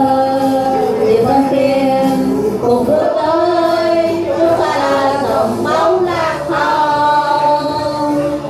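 A group of men and women singing a song together into handheld microphones, amplified through a PA speaker, holding long notes.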